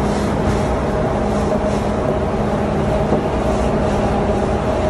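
Ship's engine-room machinery running, a steady loud drone with a faint hum.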